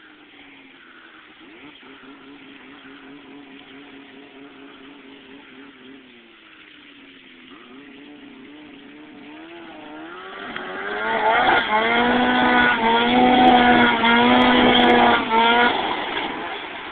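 Snowmobile engine running: steady at first, then changing pitch, and from about ten seconds in much louder and revving hard before easing off near the end.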